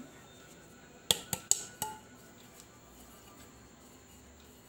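Stainless-steel tiffin tin knocked four times in quick succession about a second in, each a sharp metallic clink with a brief ring, as loose flour is tapped out of the greased and floured tin.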